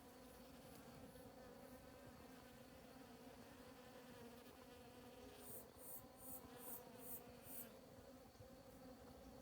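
Faint steady buzzing hum of hundreds of bees foraging on grass flowers. A little past halfway, a high chirping repeats about six times over the hum.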